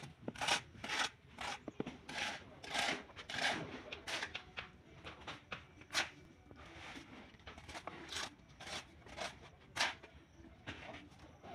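Repeated short scraping and rubbing strokes as ceramic tiles and a spirit level are worked over a bed of wet mortar, about two strokes a second at first, then sparser, with a sharper scrape about six seconds in and another near ten seconds.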